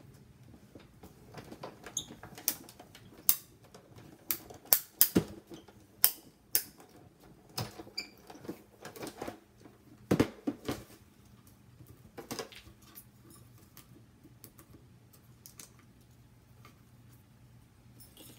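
Acrylic cutting plates and cardstock handled at a Big Shot die-cutting machine: a run of sharp clicks and taps for the first dozen seconds or so, then only occasional soft ticks.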